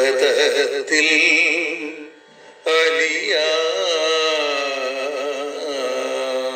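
A man singing a slow devotional song with long, wavering held notes. The singing breaks off about two seconds in and resumes half a second later on a long held note.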